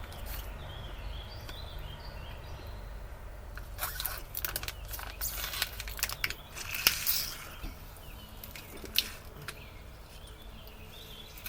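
Close-up eating sounds from a person chewing sauced chicken: scattered clicks and crunches, most of them between about four and seven seconds in, over a steady low background hum.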